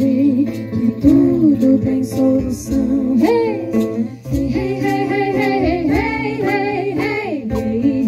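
Live acoustic folk music: women's voices singing a melody with vibrato over strummed and plucked acoustic guitar, with light percussion keeping a steady pulse.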